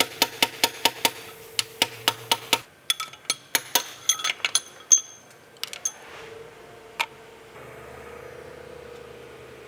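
Metal tools and engine parts clinking and knocking during an engine teardown: a quick run of sharp clinks for about five seconds, then a few scattered ones, with a faint steady hum in the last couple of seconds.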